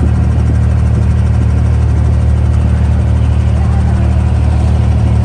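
Wooden abra water taxi's inboard diesel engine running steadily, heard loud from aboard as a low, even drone.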